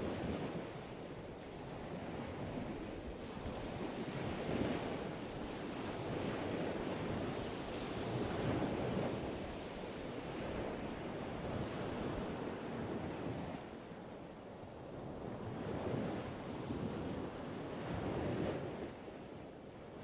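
Wind buffeting the camera's microphone: a rushing, rumbling noise that swells and eases every few seconds.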